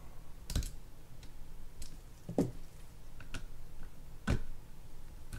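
A handful of sharp, unevenly spaced clicks and taps as a hand tool works against the bail arm of a Shimano Baitrunner 6500 spinning reel during disassembly. The loudest tap comes a little after four seconds in.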